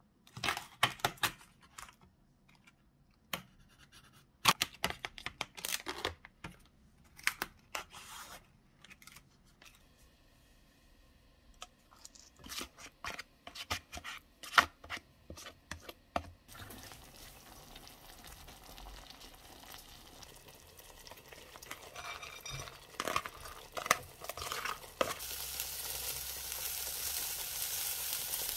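Scattered clicks and scrapes of a knife cutting the plastic film on a food tray and of packaging being handled. About halfway through a steady hiss sets in, growing louder near the end into the sizzle of rice frying in a pan as it is stirred with a spatula.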